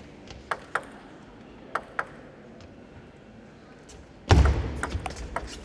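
A celluloid table tennis ball bouncing on the table before a serve: sharp clicks in two quick pairs. About four seconds in, a sudden loud thud and a wash of noise with more clicks through it.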